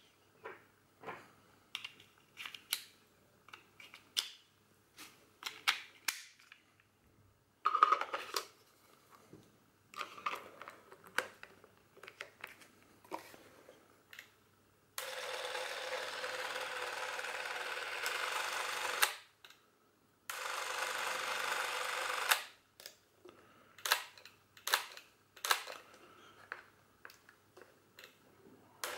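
Clicks and knocks of AA batteries and a battery holder being fitted into a Bauer S 204 XL Super 8 camera. About halfway through, the camera's motor runs steadily for about four seconds, stops, and runs again for about two seconds. More switch clicks follow near the end.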